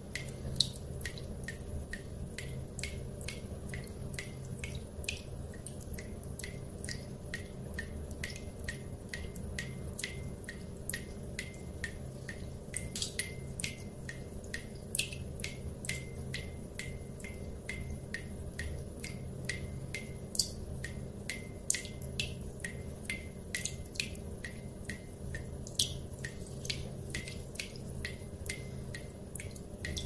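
Water dripping fast: a steady train of drops, about two or three a second, some noticeably louder than others, over a steady low hum.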